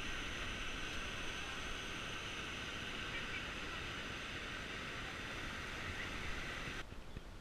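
Steady rushing of river water around inflatable rafts in fast, choppy current, which drops off sharply near the end.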